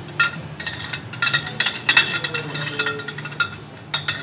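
Metal parts of a Mya hookah clinking and knocking as the assembled stem, tray and glass base are handled: a string of short clinks, some with a brief ring.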